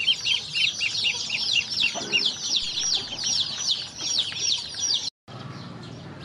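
A brood of ducklings peeping constantly, many quick, high chirps overlapping. The peeping cuts off abruptly about five seconds in, leaving a quieter low background.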